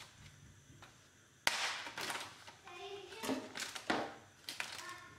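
Knife slitting open the plastic film over a plastic food tray: a sharp click about a second and a half in, then the plastic rustling and crinkling as it is cut and pulled open.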